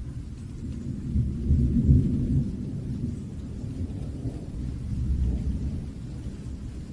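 Thunder rumbling deep and low during rain, swelling about a second in to a peak and then fading, with a second, weaker swell later on. A faint hiss of rain runs underneath.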